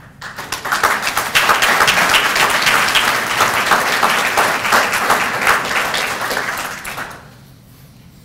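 Audience applauding, many hands clapping at once. It builds over the first second and dies away about seven seconds in.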